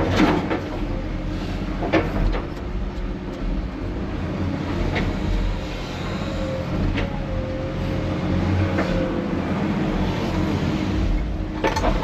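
Heavy diesel engine of a Cat 330F excavator running steadily under load, with scattered clanks and knocks. The loudest knocks come at the very start and near the end, and a faint whine appears in the middle.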